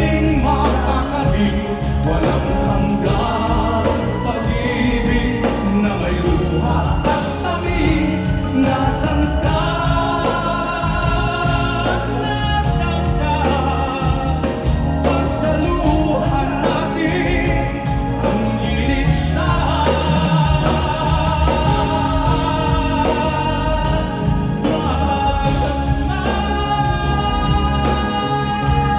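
Live band music with singing: lead and backing vocals over guitar and a heavy, steady bass, heard through the theatre's sound system.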